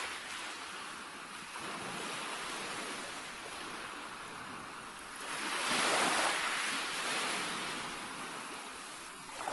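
Ocean waves washing onto a beach, a steady surf hiss. One wave swells louder about five seconds in, then fades.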